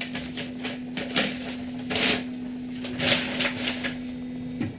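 Creality CR-10 3D printer auto-homing: its stepper motors drive the bed and print head toward the endstops with a steady whine and several short noisy bursts of movement. The whine drops and stops near the end.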